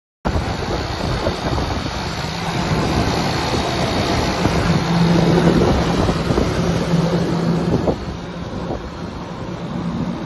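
Wind buffeting the microphone outdoors, a loud rough rushing that starts abruptly, with a low steady hum beneath it that grows stronger about halfway through.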